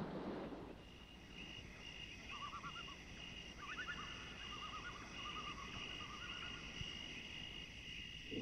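Faint night-time ambience of insects chirring steadily, with bursts of short, quick chirping calls from about two seconds in.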